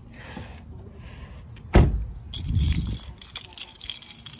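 Keys jangling, and about two seconds in a single loud thump of a door slamming shut, followed by a brief low rumble.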